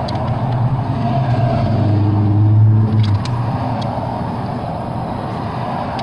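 A motor vehicle engine running, its low drone swelling over the first few seconds and falling off sharply about three seconds in, with a few light clicks.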